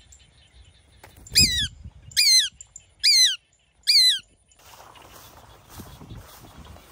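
A shikra calls four times, shrill cries a little under a second apart, each rising then falling in pitch. A low, steady rustling follows in the last two seconds.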